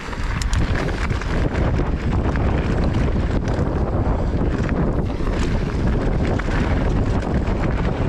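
Wind buffeting the microphone of a camera riding on a mountain bike going downhill, a steady low rumble that comes up sharply at the very start. Scattered short clicks and rattles of the bike and tyres on the trail run through it.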